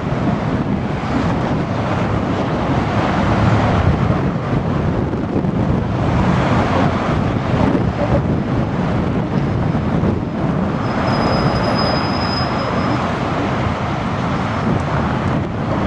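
San Francisco cable car in motion: a steady rumble and rattle of the car on its rails. A faint high squeal comes in about eleven seconds in and lasts a couple of seconds.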